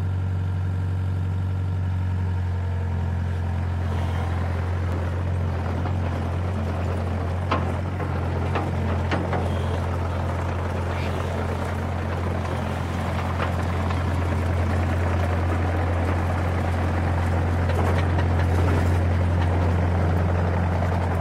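Excavator's diesel engine running with a steady low drone as the machine moves, with a few sharp metallic clanks scattered through the middle stretch.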